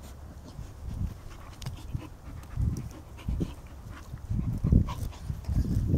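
Dog panting in uneven bursts while it rolls on its back in loose dirt.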